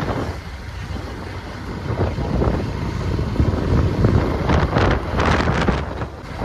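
Motorcycle running on the road with wind buffeting the microphone, the wind gusting stronger late on.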